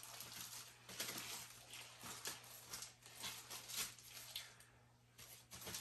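Plastic-gloved hands squeezing lemon over raw pork ribs and rubbing it in on a foil-lined tray: faint, irregular rustles and soft squishes with light crinkles of foil, easing off about four seconds in.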